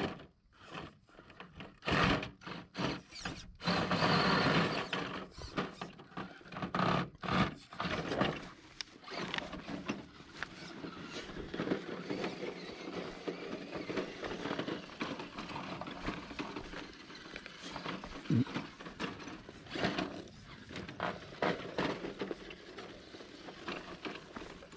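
Element RC Enduro Trail Walker crawler's small electric motor and geartrain whining in bursts as it climbs over rocks, with its tyres scrabbling and clattering on stone, loudest a few seconds in. Footsteps crunch on a dirt and gravel trail.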